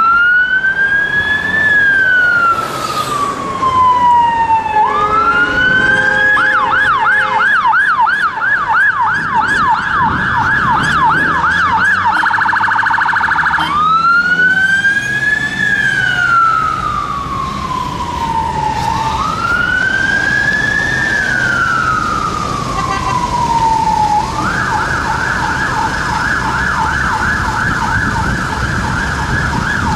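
Mercedes Sprinter ambulance's electronic siren on an emergency run. It alternates between a wail that rises quickly and falls slowly about every three seconds and a fast yelp: yelp from about six seconds in, wail again near fourteen seconds, then yelp from about twenty-four seconds in. Engine and traffic noise run underneath.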